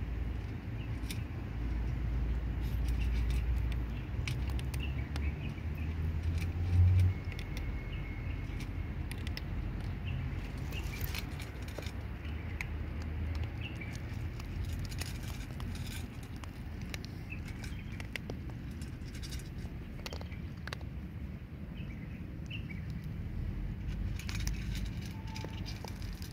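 Outdoor background noise: a steady low rumble with scattered light clicks and crunches.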